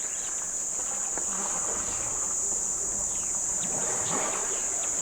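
Steady, high-pitched drone of insects in the bush, with faint soft swishing and rustling noises twice underneath.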